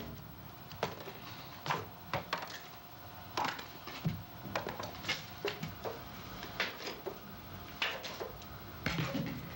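Playing cards flicked one at a time from a deck and landing on a wooden floor: a dozen or so irregular, sharp clicks and snaps.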